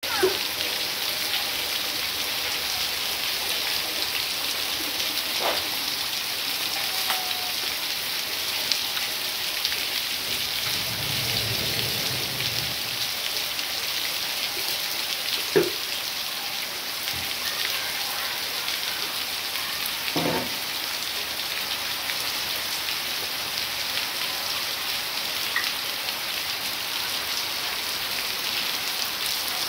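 Heavy rain falling steadily, an even hiss of rain on concrete and roofs, with a few louder single taps of drops now and then, the loudest about halfway through.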